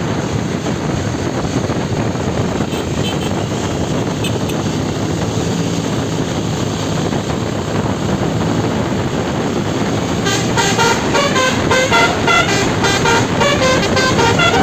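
Steady bus engine and road noise. About ten seconds in, a 12-note basuri telolet horn starts playing a quick melodic run of short notes, stepping up and down in pitch over the vehicle noise.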